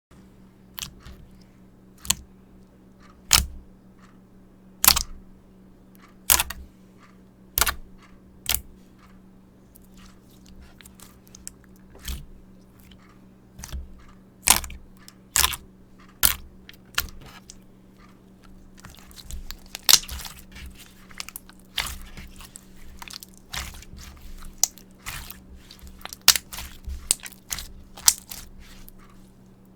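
Mirror slime being pressed and stretched by hand, giving sharp pops about every second and a half at first, then a denser run of crackling pops in the second half.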